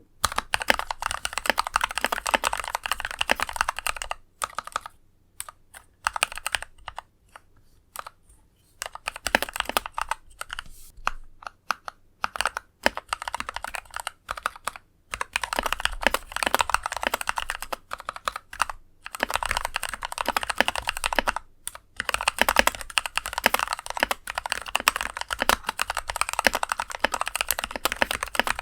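Typing on an NK65 mechanical keyboard with filmed, Krytox 205g0-lubed Kailh Pro Burgundy linear switches: runs of rapid keystrokes broken by short pauses of a second or so. The switches give a deep thonk, still somewhat scratchy despite the lube.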